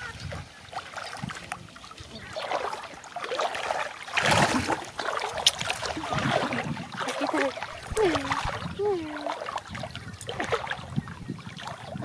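Water splashing and sloshing as a child swims through a river, with a louder surge about four seconds in. Near the end, two short falling squeals.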